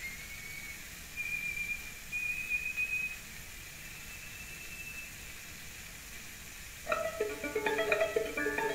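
Recorded music playing from an old record through a vintage horn reproduction system. A single high, thin bowed note is held for several seconds and fades, over steady record-surface hiss. About seven seconds in, quick plucked string notes begin.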